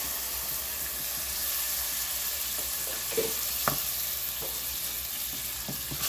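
Dressing mix and sautéed vegetables sizzling in a stainless steel pot, stirred with a wooden spoon that knocks against the pot a few times in the middle, sharpest about three and a half seconds in.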